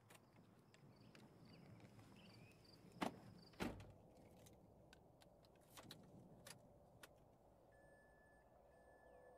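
Quiet room tone with a few light handling knocks and clicks, two louder ones a little over halfway through the first half, as a leather panel is slid and positioned on a stamping machine's bed.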